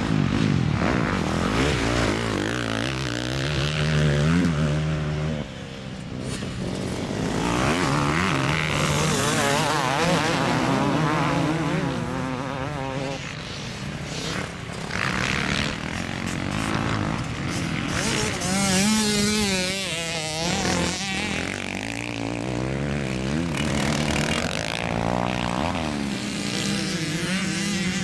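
Off-road motorcycles riding a motocross track, their engines repeatedly revving up and dropping off as they accelerate, shift and back off over the jumps.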